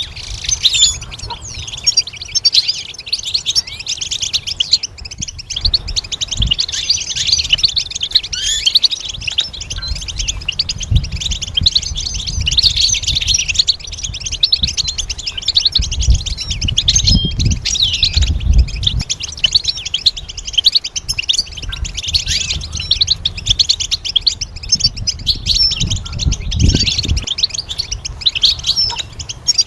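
European goldfinch singing: a continuous stream of quick, high chirps and trills. Low thumps and rumble come in underneath at times.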